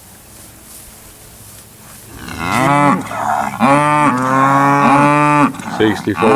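Cattle mooing: after a quiet start, about three long, loud moos begin some two seconds in, each falling in pitch at its end.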